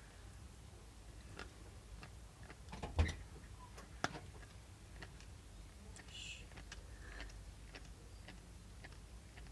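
A pet nibbling at a snack: faint, irregular small clicks and ticks, with a louder knock about three seconds in and a sharp click a second later.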